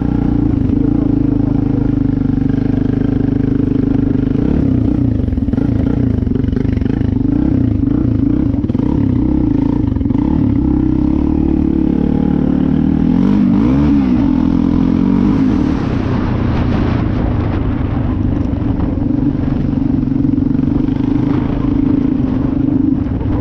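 Off-road motorcycle engine running steadily while being ridden, heard up close from the rider's helmet. About halfway through, the revs rise and fall briefly.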